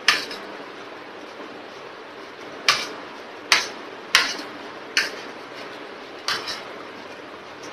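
Metal spoon clinking and scraping against a ceramic plate while scooping up rice and vegetables: one sharp clink at the start, then five more, each under a second apart, in the middle of the stretch.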